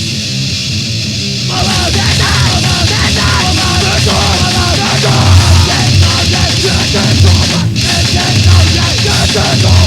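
A grindcore/power-violence band playing on a lo-fi demo-tape recording: fast, heavily distorted guitar and bass with drums, and a harsh wavering part, likely yelled vocals, entering about a second and a half in.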